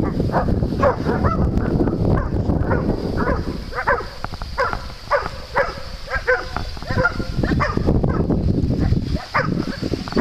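Dogs barking repeatedly in short, sharp barks, several a second at times, over a steady low rumble.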